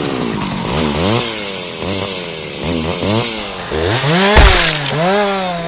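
Chainsaw sound effect, revving up and down over and over, with a sudden loud burst about four and a half seconds in.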